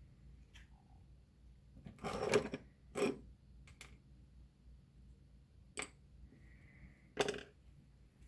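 A handful of short knocks and clicks from metal engine parts and tools being handled on a workbench, about five in all, the loudest two to three seconds in.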